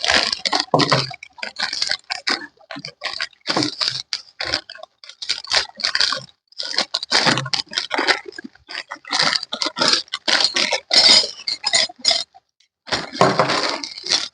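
Small sewing-machine accessories and parts clinking and rattling as they are handled, a quick irregular run of clicks and clinks with a short pause about twelve seconds in.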